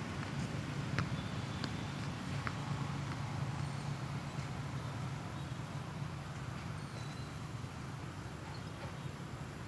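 Heavy machine's engine running steadily with a low, even hum, a few light clicks in the first few seconds.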